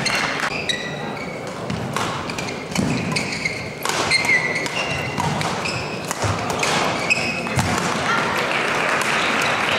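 Badminton doubles rally: rackets striking the shuttlecock with sharp pops about once a second, and short high squeaks from shoes on the court floor, over the murmur of spectators in the hall.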